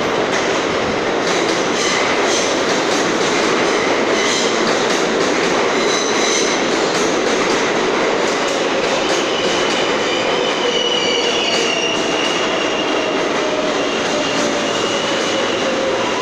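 An R143 subway train running into the station along the platform: a loud, steady rumble of wheels on rail. A thin high wheel squeal joins about nine seconds in.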